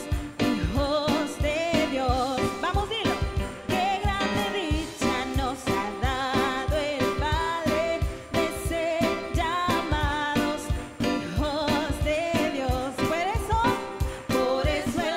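Live Pentecostal worship music: singers with microphones singing a Spanish-language corito over keyboard and a drum kit keeping a steady, upbeat rhythm.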